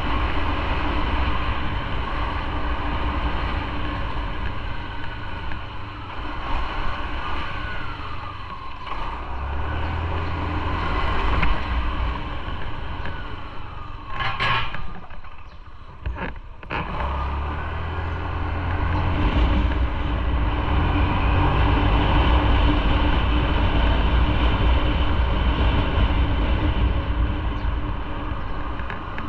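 Motorcycle running at road speed, a steady engine and road rumble that dips briefly about halfway through, then picks back up.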